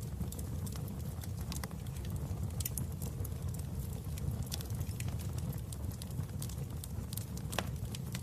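Wood fire burning in a fireplace: a steady low rumble of flames with frequent, irregular sharp crackles and pops, one louder snap near the end.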